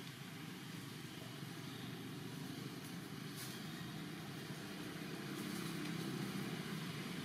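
Steady low rumble of background noise, growing a little louder about five seconds in, with a brief faint rustle about three and a half seconds in.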